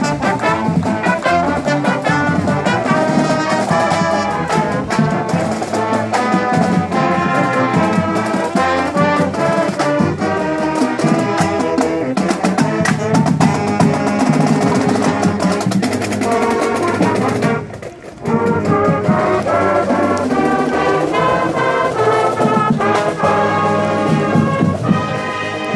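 High school marching band playing as it marches past: brass, saxophones and a drumline together, with a brief pause about two thirds of the way through.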